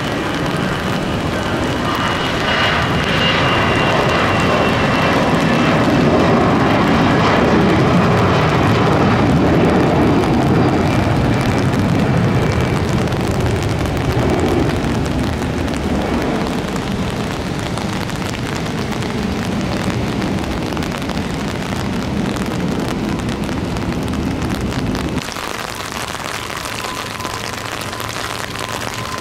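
Jet airliner on the runway, its engines running loud with a high whine that slowly falls in pitch, over a steady hiss of heavy rain. The low rumble drops off suddenly near the end.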